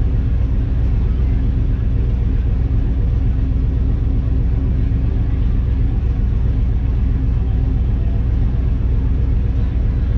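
Race car engine idling steadily with a deep, even rumble, heard from inside the cockpit.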